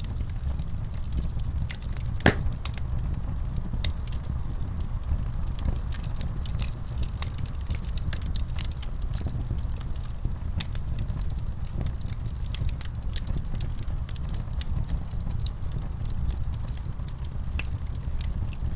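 Fire burning in a fireplace: a steady low rumble of flames with scattered crackles and pops throughout, one sharper pop about two seconds in.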